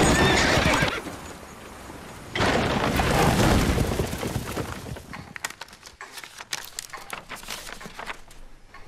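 A horse neighs at the start. About two and a half seconds in comes a louder rush of noise, then a scatter of light knocks and clicks that fades away.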